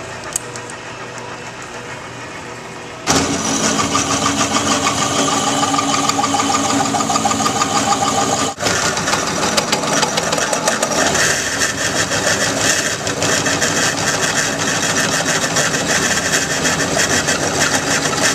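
Drill-driven tubing notcher with a 1-inch bimetal hole saw: the motor runs freely for about three seconds, then the saw bites into 1-inch tubing and cuts with a loud, steady grinding noise, with a brief break about eight and a half seconds in.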